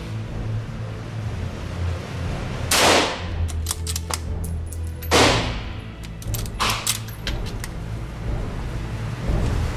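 Gunshots on a firing range: two loud shots about two seconds apart, with quieter shots and sharp clicks between and after them over a steady low hum.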